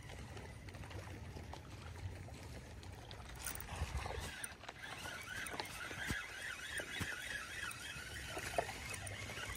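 Spinning reel being cranked to retrieve a lure, faint, with water lapping against the boat hull.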